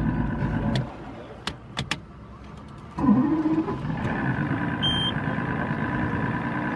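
Evinrude 225 outboard motor running steadily. The sound drops away about a second in, with a few clicks in the lull. About three seconds in it comes back with a short rise in pitch and runs on evenly, with a brief high beep near the five-second mark.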